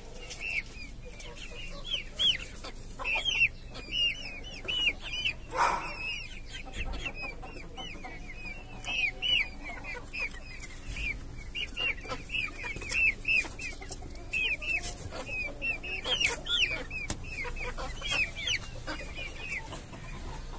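A flock of three-month-old Silkie and Ayam Cemani chickens peeping and cheeping continuously, many short high chirps overlapping one another, with scattered light taps.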